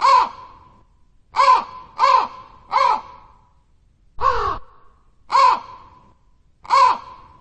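A crow cawing: seven short, harsh caws at an uneven pace, the one about four seconds in longer and rougher than the rest.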